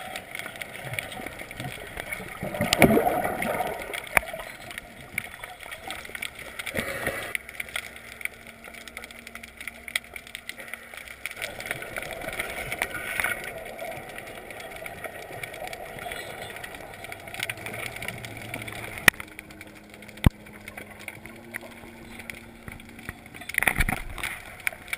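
Underwater sound picked up by a submerged camera: a steady wash of water noise with scattered sharp clicks and a few louder whooshing surges of moving water, one about three seconds in and another near the end.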